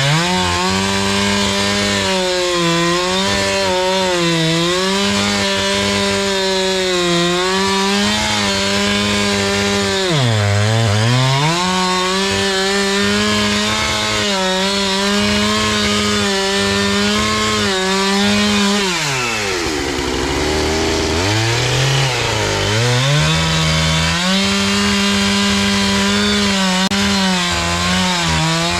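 Husqvarna 390XP two-stroke chainsaw running at high revs while cutting through a large willow trunk. Its engine note sags briefly about ten seconds in and again, for longer, about two-thirds of the way through, then climbs back up.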